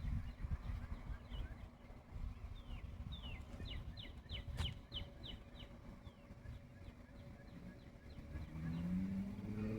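A songbird singing: a run of quick downslurred whistled notes, about four a second, in the middle, with scattered single notes before and after, over a low steady rumble. A low engine hum comes in near the end.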